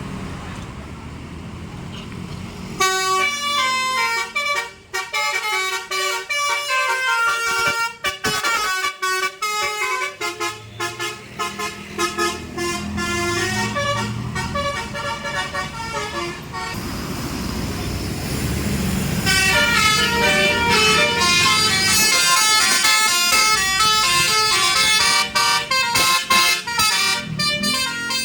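Bus 'telolet basuri' musical horn playing a fast melody of short stepped notes, starting about three seconds in. It breaks off for a couple of seconds of engine and traffic rumble, then plays a second, busier melody from about nineteen seconds on.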